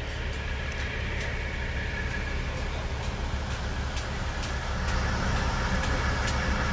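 Diesel semi-truck engine idling with a steady low rumble, growing louder toward the end, with scattered sharp clicks.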